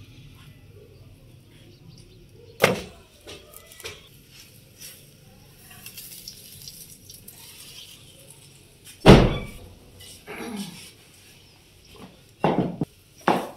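Scattered knocks and thumps of cooking utensils and an iron tawa being handled at a wood-fired hearth: a sharp knock about three seconds in, the loudest, deepest thump about nine seconds in, and two more knocks near the end.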